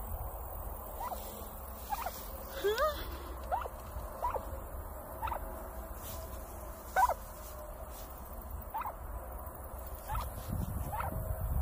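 Domestic turkey hen giving short, soft chirps, about one a second, some in quick pairs, while pecking in raked grass.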